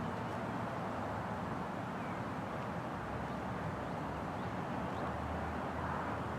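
Steady outdoor background noise, an even low rumble with a few faint short chirps; the siren is not sounding.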